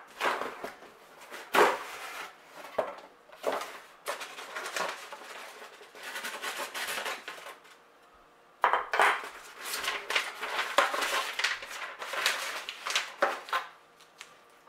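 A cardboard shipping box being opened by hand: knocks and scrapes as the lid and flaps are pulled open, then paper inserts and packaging rustling and crinkling as the contents are lifted out, with a brief pause about eight seconds in.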